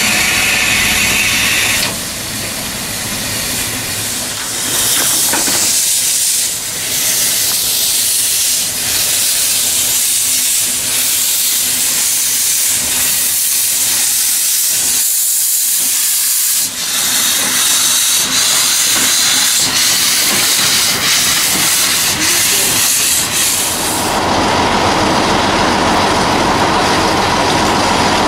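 Narrow-gauge steam locomotive Mh.6 moving slowly with steam hissing from its open cylinder drain cocks, a loud steady hiss. Near the end the hiss gives way to a lower, fuller rumble of the locomotive standing and blowing steam.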